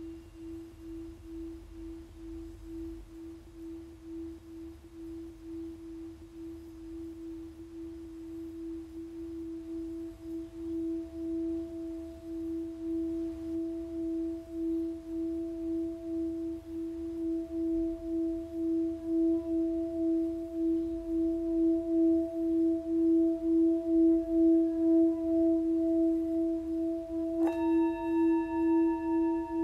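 A sustained low droning tone with an even pulsing waver, joined by a second tone an octave above that swells in and grows louder. Near the end a sharp click, then a higher ringing tone with several overtones comes in over the drone.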